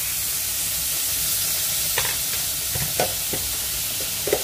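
Butter sizzling and frying in a hot metal pan, a steady hiss, with a fork clinking against the pan a few times in the second half.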